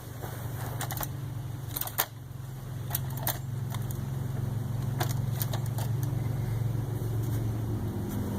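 A steady low engine hum that slowly grows louder, with scattered sharp clicks and knocks over it, once the chainsaw has stopped.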